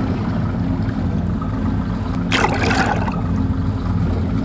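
A boat's motor running steadily with a low hum, and a short rushing noise about two and a half seconds in.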